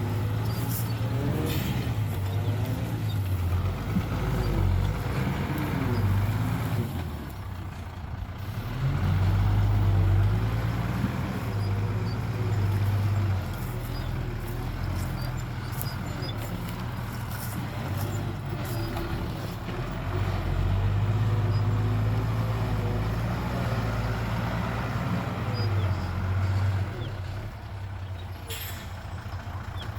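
Heavy diesel machinery running, its engines revving up and down under load, with short hisses about a second in and again near the end.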